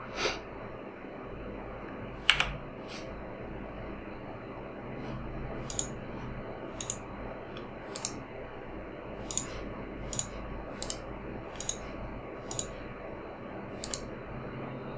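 Computer mouse clicks: one louder click about two seconds in, then a run of short, sharp clicks about one a second.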